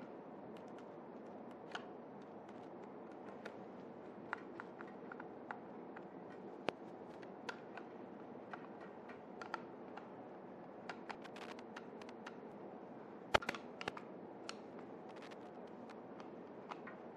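Faint, scattered clicks and ticks of a small screwdriver turning the screws that fasten a plastic transit board onto an Epson print head, with one sharper click about thirteen seconds in.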